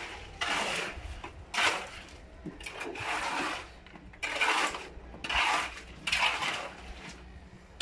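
Steel shovel scraping through a pile of wet concrete mix, in repeated strokes about once a second.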